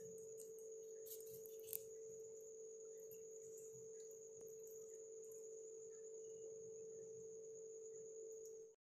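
A faint, steady pure tone with a thin, high whine above it, cutting off suddenly near the end. A few faint clicks sound about a second or two in.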